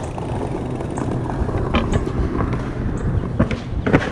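Bicycle riding noise picked up by a chest-mounted action camera: steady wind and road rumble, with a few sharp clicks and knocks from the bike, strongest near the end.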